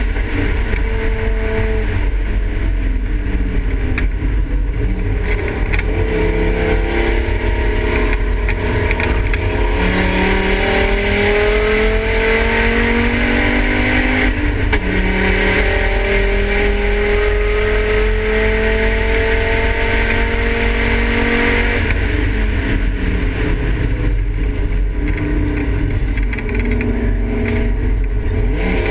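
Volvo 850 race car's engine heard from inside its stripped cabin, pulling up through the revs with the pitch climbing and dropping sharply at several upshifts, over constant road and wind noise.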